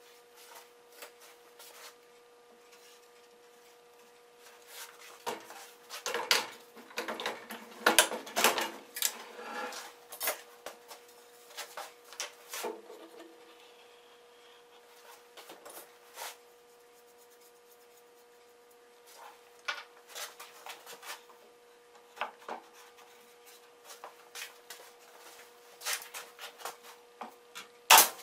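Wooden strips and jig parts handled on a bandsaw's jig table, with scattered knocks, taps and rubbing and a busier stretch of clatter a few seconds in. Near the end, a sharp crack as a pneumatic nail gun fires. A faint steady hum sits underneath.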